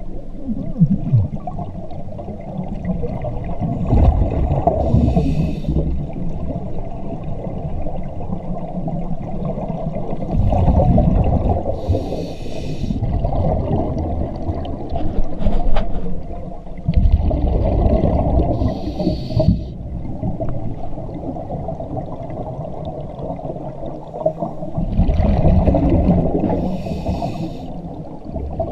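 Scuba regulator breathing underwater: a short hissing inhale and a gurgling rush of exhaled bubbles, repeating about every seven seconds over a constant low rumble of water.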